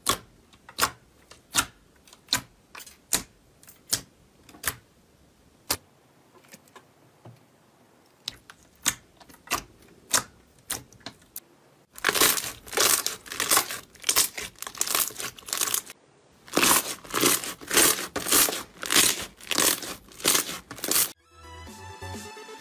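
Clear jelly slime pressed and squeezed by hand: sharp sticky pops about once or twice a second, then, about halfway through, a dense run of crackling, squishing pops as the slime is worked. Electronic music starts near the end.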